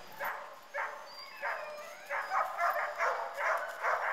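Several sled dogs barking and yapping, many barks in quick succession, busier and louder in the second half.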